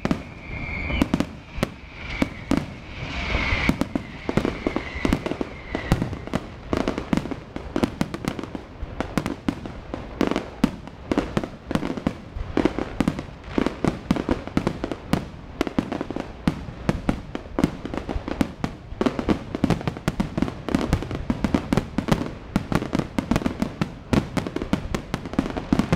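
Large fireworks display: a dense, unbroken barrage of aerial shells bursting, with rapid bangs and crackling several times a second.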